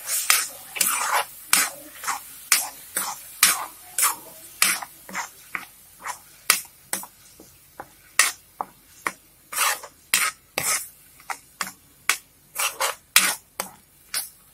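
Steel spoon stirring thick tamarind pulp in a kadhai, scraping against the pan's metal at about two to three strokes a second.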